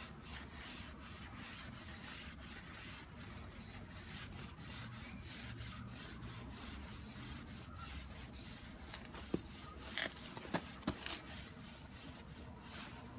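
Repeated rubbing strokes against a motorcycle drive chain as it is cleaned, with a few sharp clicks near the end.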